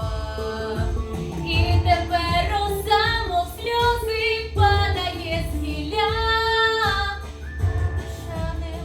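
A 17-year-old girl singing a pop song with sustained, gliding notes over an instrumental backing with a pulsing bass.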